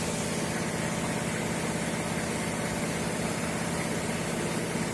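Fire pump engine running steadily at a constant speed, with a continuous hiss of water flowing.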